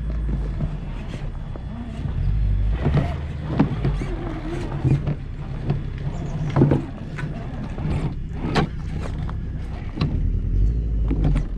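Radio-controlled car driving over rock, with a steady low rumble and irregular sharp knocks.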